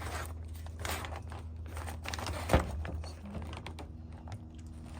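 Scattered rustling and scraping of hands handling engine parts and tools, with one sharp click about two and a half seconds in, over a steady low hum.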